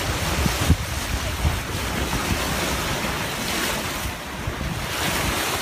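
Wind buffeting the microphone over the steady rush and splash of sea water running past the hull of a sailing boat under way.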